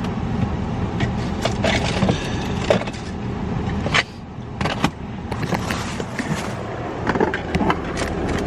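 Car engine idling while it warms up in the cold, a steady low hum. Scattered clicks, knocks and rustles of things being handled inside the cabin.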